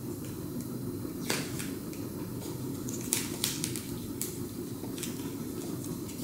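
Short clicks and crackles of black electrical tape being pressed and wrapped around a headphone cable on a metal detector shaft, several in quick succession near the middle, over a steady low hum.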